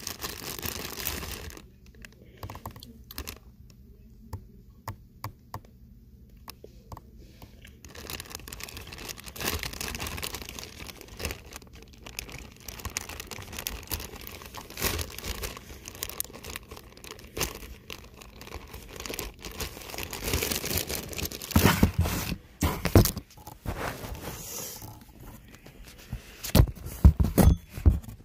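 Close crinkling and rustling of materials being handled, with scattered scrapes and small knocks. Quieter in the first few seconds, it grows louder, with the strongest bursts of crinkling and knocking near the end.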